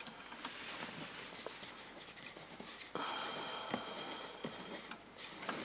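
Faint handling noises and small clicks as a mains plug is fitted into a wall socket. About three seconds in, a faint steady hiss with a thin high tone sets in for about two seconds.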